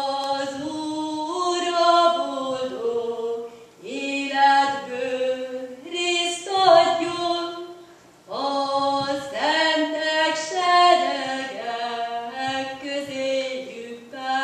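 A woman singing a Hungarian folk song solo and unaccompanied, in phrases that move in steps of pitch, with short breaths between them about four and eight seconds in.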